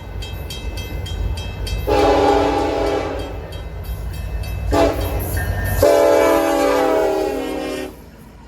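Locomotive air horn sounding the end of the grade-crossing signal: a long blast, a short one, then a final long blast. Under it, a diesel locomotive engine runs with a low rumble that drops away near the final blast.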